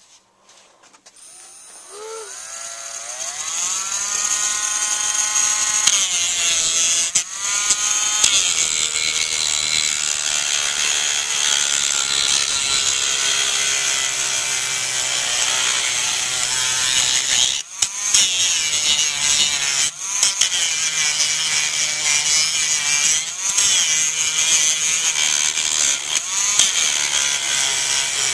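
A Dremel rotary tool spinning up about two seconds in, its pitch rising, then grinding away the polymer of a shotgun fore-end with a steady high-pitched whine, breaking off briefly a few times.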